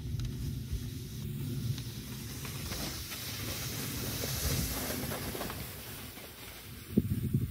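Hard plastic sled hissing as it slides over packed snow, the hiss swelling in the middle, over a low rumble. A few thumps near the end.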